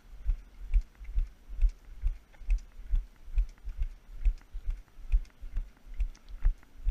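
Brisk walking steps carried through a body-worn action camera: a steady beat of low thumps a little over twice a second, with light sharp clicks of Nordic walking pole tips on the paved path.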